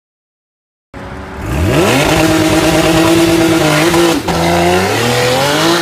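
Porsche 911's flat-six engine revving hard under full acceleration. It starts abruptly about a second in, climbs steeply in pitch and holds high, then dips briefly about four seconds in, as at a gear change, and climbs again.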